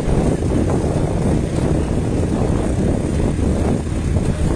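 Steady low rumble of a boat on the river, with wind buffeting the microphone.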